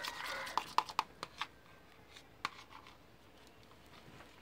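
A spoon clicking and tapping against the pot of glue and baking-soda slime mix, a quick run of light clicks in the first second and a half and one more about two and a half seconds in.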